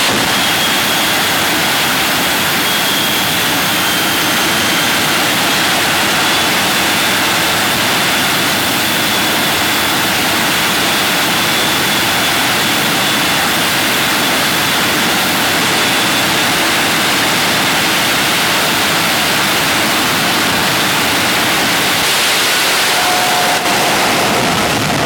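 Shockwave jet truck's three jet engines running steadily, with a loud rushing noise and a faint high whine over it.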